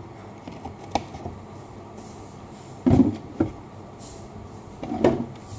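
Dishes and utensils knocking a few times, about one, three and five seconds in, the one around three seconds in the loudest, over low steady room noise.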